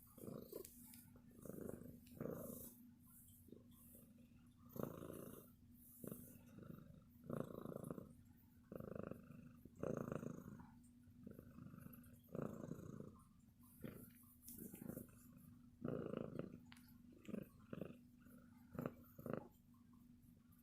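Domestic cat purring steadily, the purr swelling and fading every second or two.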